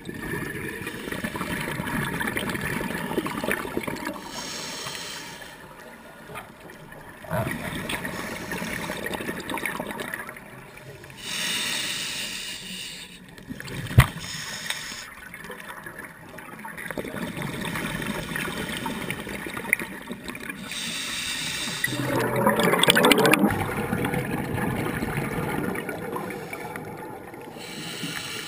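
Scuba diver breathing through a regulator underwater: a hiss of inhaled air through the demand valve alternates with the gurgling rush of exhaled bubbles, a cycle every four to five seconds. The loudest bubble burst comes about three quarters of the way through, with one sharp click near the middle.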